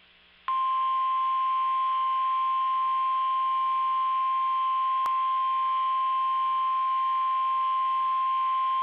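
NOAA Weather Radio 1050 Hz warning alarm tone: one steady, unbroken high beep that starts about half a second in and holds, with a brief click about five seconds in. The tone signals that an emergency alert, here a tornado watch, is about to be broadcast.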